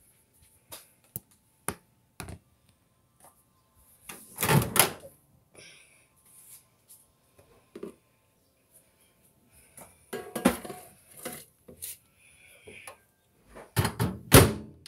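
A phone handled close to its microphone: scattered knocks, thumps and rubbing with quiet stretches between. The loudest is a longer rub about four and a half seconds in, with clusters of thumps around ten seconds in and near the end.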